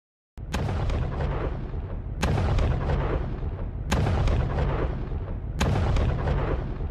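Four loud booming blasts from an explosion or artillery-fire sound effect, about 1.7 seconds apart. Each begins with a sharp crack and trails off in a rumble, and the last is cut off abruptly.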